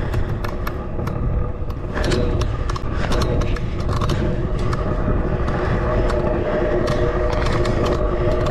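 Wind buffeting the microphone with rattling clicks throughout, as if on the move. A steady motor-like hum joins about two seconds in.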